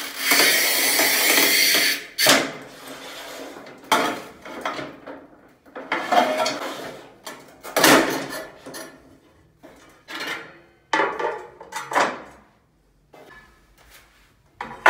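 Cortag Master 125 manual tile cutter scoring a porcelain tile: the scoring wheel scrapes along the glaze for about two seconds. Then the handle and breaker knock and clack several times, with a sharp crack about eight seconds in as the tile snaps, and ceramic clinks as the cut strip is lifted off.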